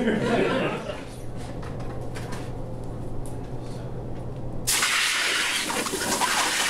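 Red-hot copper mask being quenched in a wooden tub of water, starting about five seconds in: a sudden loud, steady sizzling hiss of boiling water and steam. Quenching the glowing copper anneals it, softening the metal for further dishing.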